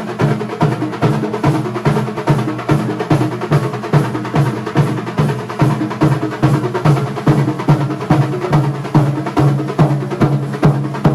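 Kerala thambolam percussion band playing a fast, driving drum rhythm, with dense sharp strokes over a steady, evenly repeating beat.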